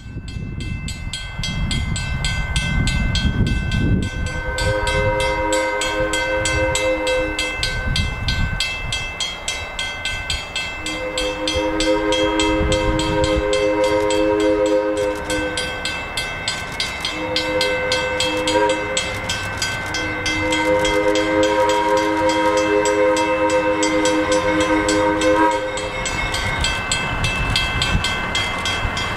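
GE 80-ton diesel locomotive's horn blowing the grade-crossing signal: two long blasts, a short one, then a final long one, warning a road crossing ahead. Under it the locomotive's diesel engine rumbles and the crossing's warning bell rings steadily.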